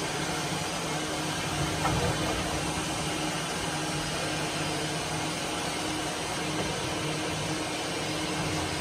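Steady machine hum and noise, with a single light knock about two seconds in.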